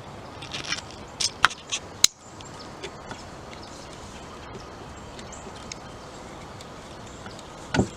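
Bolts and a metal Allen wrench clicking and tapping against the tree stand's cable block as the bolts are fitted into their holes. About four sharp clicks come in quick succession between one and two seconds in, and there is one more knock near the end.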